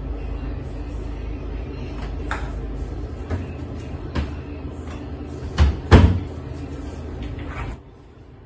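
Wooden kitchen cabinet door opened and shut, with a series of knocks and clicks, the loudest two close together a little after the middle. A steady low hum underneath cuts off near the end.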